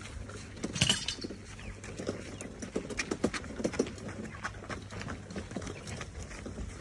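Chickens clucking with short calls, amid many irregular clicks and knocks, the loudest about a second in.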